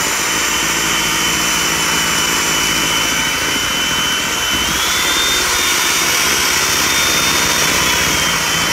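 Electric hand mixer running, its beaters whirring through thick cookie batter in a stainless steel bowl. Its steady whine steps up in pitch about halfway through and drops back near the end.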